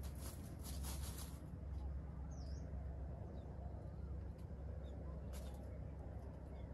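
Brief rustling in dry leaf litter in the first second or so as a small bird moves about on the leaves, with one short high chirp a couple of seconds in and a few fainter rustles later, over a steady low rumble.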